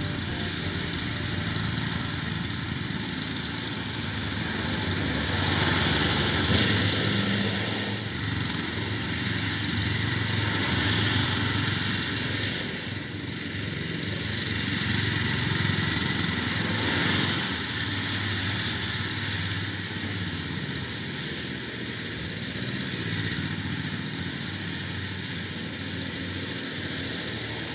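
Victa 10-42 ride-on lawn tractor's engine running steadily under mowing load, growing louder and fainter every five seconds or so as the tractor works across the lawn.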